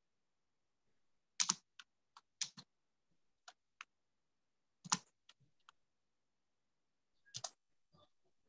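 Computer keyboard keys clicking, about a dozen sharp keystrokes in small irregular clusters with pauses between.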